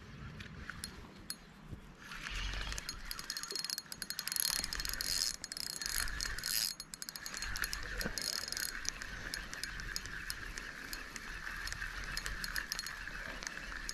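Small fixed-spool spinning reel being cranked to retrieve a spinner lure on braided line, giving a steady whir with rapid ticking from the turning rotor. The winding starts about two seconds in, breaks off briefly around seven seconds, then carries on evenly.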